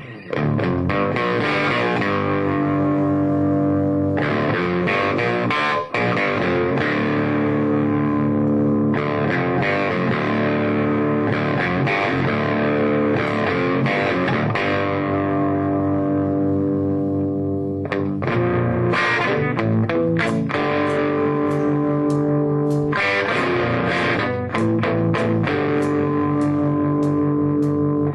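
Electric guitars playing a rock instrumental passage, with distortion and effects on sustained chords.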